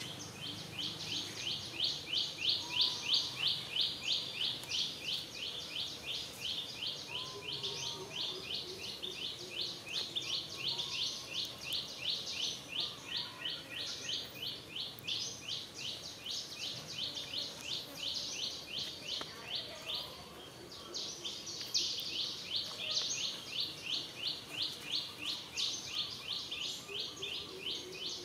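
High, rapid chirping, several evenly spaced pulses a second, running on with a short break about twenty seconds in, with fainter, lower calls now and then.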